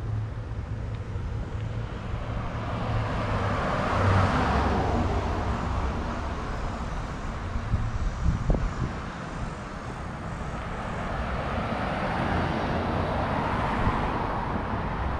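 Street traffic: two vehicles pass by, the first about four seconds in and the second near the end, each a swell of road noise that rises and fades, over a steady low rumble.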